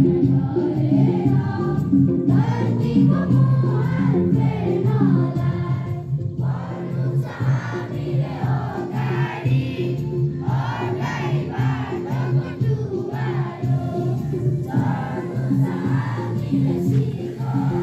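A chorus of voices singing together over a steady musical accompaniment.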